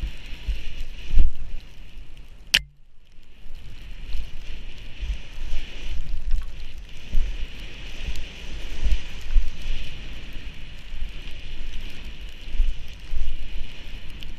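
Wind buffeting an action camera's microphone, mixed with the hiss of skis running through powder snow, with irregular low thumps throughout. A sharp click about two and a half seconds in is followed by a moment of near silence.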